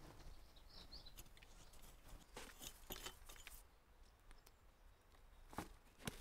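Faint scraping and rustling of a small hand weeding tool working garden soil and plants, with a couple of soft knocks near the end as the tool and weeds go to the bucket. A few faint bird chirps about half a second in.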